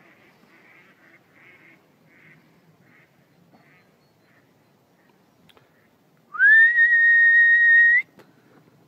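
A single loud whistle to call the dogs back, lasting under two seconds about six seconds in: it slides up quickly at the start, then holds one steady high note before cutting off.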